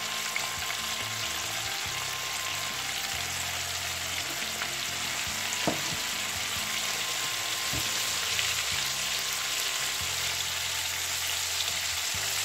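Flour-coated chicken pieces deep-frying in hot vegetable oil: a steady, dense crackling sizzle, with a couple of light knocks about midway.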